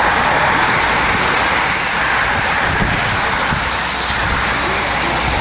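A large pack of racing bicycles passing close by: a steady, loud hiss and whir of many tyres on the road surface and spinning drivetrains.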